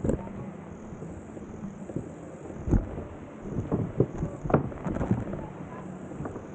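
Bicycle rolling across a wooden-plank hanging bridge, its loose boards knocking and thumping under the tyres at irregular moments. The loudest knocks come about two and three-quarter seconds in and again around four to five seconds in.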